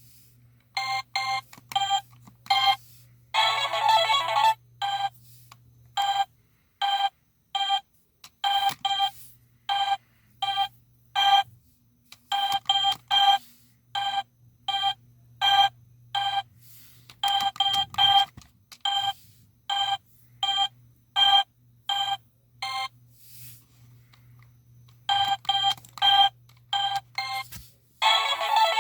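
Electronic toy game beeping: a run of short, same-pitched electronic beeps in irregular groups with pauses between. A longer, buzzier tone sounds about four seconds in and again near the end.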